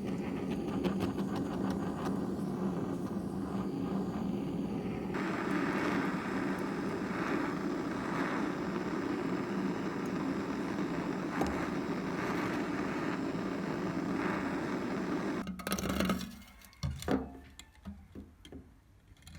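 A motor running steadily with an even hum, cutting off suddenly about three-quarters of the way through, followed by a few light clicks.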